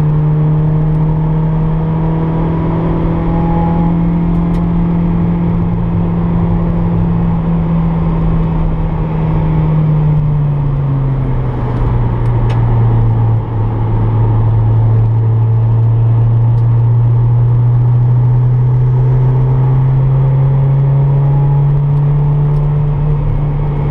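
K20-swapped Honda Integra Type R's four-cylinder engine heard from inside the cabin, running at steady moderate revs. Its pitch drops about ten seconds in, then climbs slowly again.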